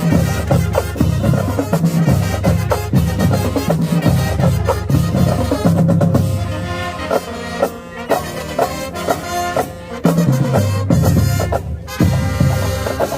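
Marching band playing loudly, with the drumline's bass drums and snares pounding out a dense rhythm. About halfway through, the drums ease off and sustained horn notes carry for a few seconds, then the full drumline comes back in.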